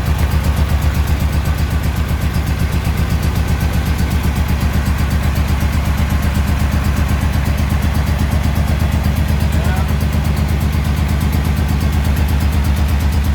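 1938 SS Jaguar 3½ Litre straight-six engine idling steadily with an even, low pulsing beat. The owners have found a fault at the cylinder head, which they suspect affects the head and block, and mean to take the head off.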